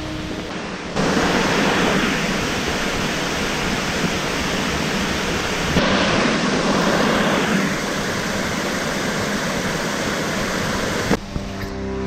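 Loud rushing water, a steady wash of noise with no tones, which changes abruptly about a second in, around the middle and near the end as the footage cuts.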